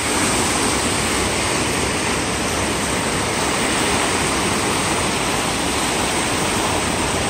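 Steady rush of churning whitewater pouring through an artificial concrete-lined rapids channel.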